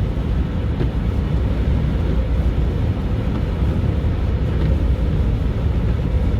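Car driving at road speed: a steady low rumble of road and engine noise.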